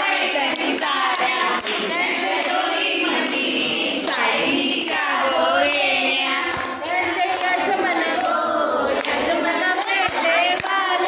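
A group of women singing a devotional song together in a temple hall, with hand claps keeping the beat.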